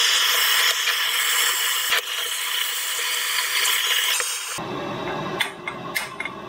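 Gas cartridge blowtorch hissing steadily, its flame heating the cast turbocharger housing to free the stuck core. About four and a half seconds in the hiss cuts off, and lower handling noise with a few light knocks follows.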